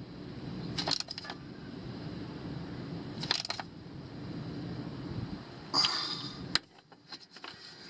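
A few separate metallic clinks and short scrapes, about a second, three seconds and six seconds in, from a wrench working the fill plug on the aluminum transfer case, over a low steady hum.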